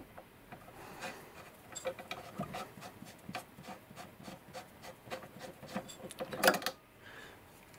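Light metallic clicks and scraping from an ER20 collet nut and collet being loosened by hand to free a screwdriver bit, with one sharper click about six and a half seconds in.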